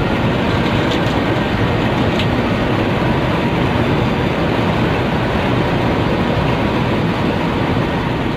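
Intercity bus driving at speed: steady engine and road noise.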